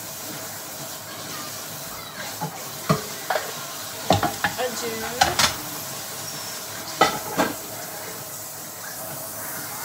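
Kitchen clatter: a utensil and dishes knocking and scraping on a counter in a scattered run of sharp clicks and knocks, heaviest in the middle, over a steady background hiss.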